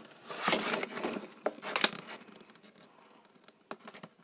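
Toy packaging being opened by hand: crinkling and rustling in bursts, loudest about half a second to a second in and again just before two seconds, then softer handling noise.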